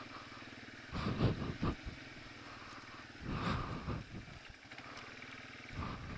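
A 1989 Yamaha Moto 4 250 ATV's single-cylinder four-stroke engine running at low trail speed. Louder rough bursts come about a second in, around three and a half seconds, and again near the end.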